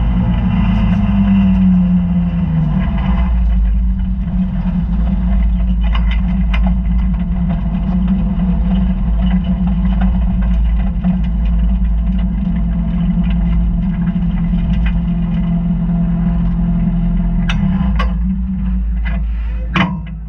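Dirt-track race car's engine heard from inside the cockpit, its pitch falling over the first few seconds as the car slows, then running steadily at low revs. Several sharp knocks or clacks come near the end.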